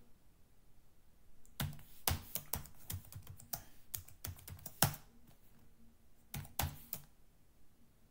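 Computer keyboard keys clicking as a password is typed, an irregular run of keystrokes that starts about a second and a half in and stops about seven seconds in.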